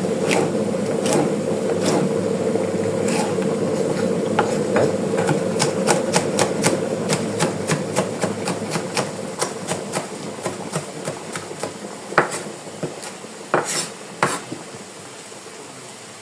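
A run of quick knocks and taps from kitchen utensils at work, most rapid through the middle, with a few louder knocks near the end. Under them a steady hum, which the cook puts down to the kettle heating water, fades away.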